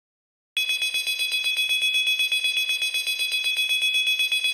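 Alarm ringing with a high, two-tone electronic ring that pulses rapidly, about eight times a second. It starts about half a second in and cuts off abruptly at the end: the wake-up alarm being switched off.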